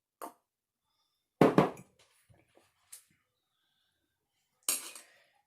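A few knocks and clicks of small objects being handled, the loudest a double thud about a second and a half in, with a short rustling noise near the end.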